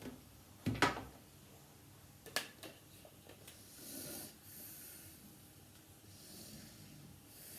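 Quiet handling of lightsaber hilt parts: a sharp knock just under a second in and another near two and a half seconds, with a few faint clicks, and soft breaths close to the microphone.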